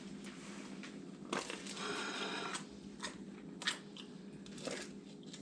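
Crisp baked French-bread crust of a pizza boat crunching, with a longer crunch about a second in and a couple of sharp clicks later. A steady low hum sits underneath.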